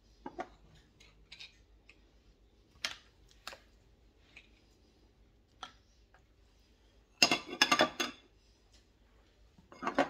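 Kitchen clatter of pots and utensils being handled: scattered clicks and knocks, with a burst of loud clattering about seven seconds in and another near the end.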